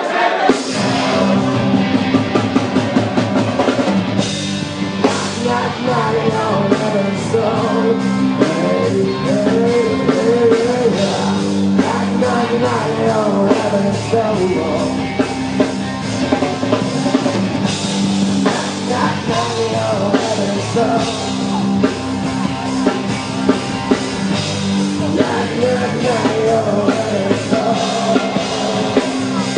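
Live rock band playing a song: a singer over electric instruments and a drum kit keeping a steady beat.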